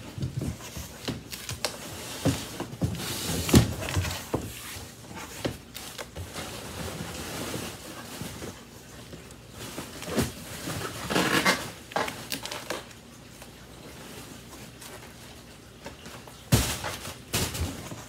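Cardboard box and packaging being handled while it is unpacked: irregular rustling, scraping and knocks of cardboard, with a louder rustling burst near the end.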